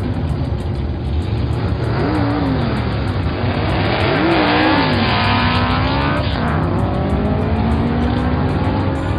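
Race car engine sound effects: engines running over a steady low rumble, revving with the pitch swooping up and down about two seconds in and again near the middle, where it climbs highest.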